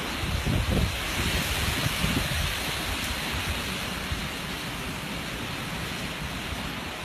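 Steady rushing noise with low rumbling swells that are strongest in the first two seconds.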